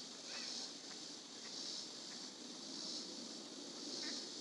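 Insects in the trees buzzing in a pulsing chorus that swells and fades about once a second, with a few faint chirps over it.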